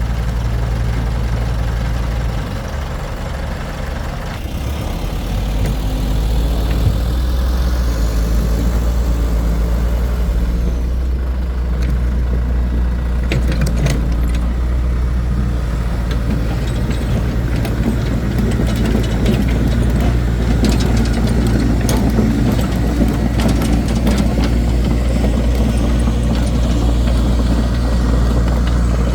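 Excavator engine running steadily and loud, its speed dropping briefly about two to four seconds in before picking back up, with scattered knocks and clanks.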